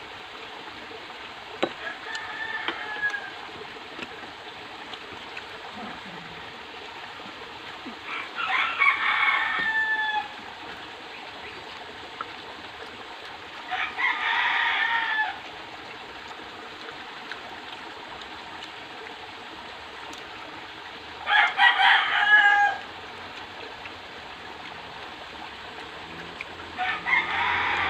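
A rooster crowing five times, a long call of one to two seconds roughly every six seconds; the first crow is faint and the later ones are louder.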